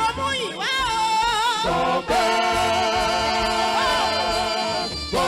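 Yoruba gospel praise singing over a band with a steady beat. The voice sings with a wide vibrato and holds one long note for nearly three seconds.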